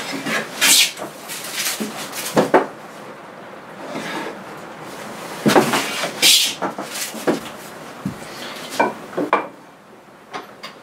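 Metal bench plane taking shavings off a wooden board: several separate strokes, each a short hiss of the blade cutting, with knocks of the plane on the wood. The strokes stop about eight seconds in, leaving a few light clicks and taps.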